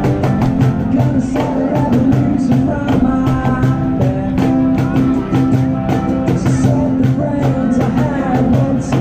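Rock-style music with a steady drum beat, bass and guitar, and singing.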